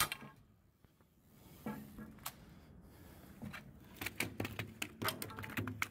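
Irregular knocks and slaps of a freshly landed jewfish (mulloway) being handled in a landing net on a wet deck: a sharp knock at the start, a few scattered ones, then a quick clattering run near the end.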